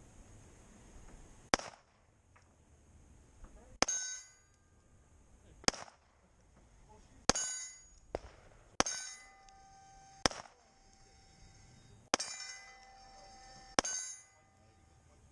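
Eight pistol shots at a steel plate rack, paced about one every 1.5 to 2 seconds. Several shots are followed by the clang of a steel plate ringing on for a second or so, the sound of a hit; the others have no ring after them.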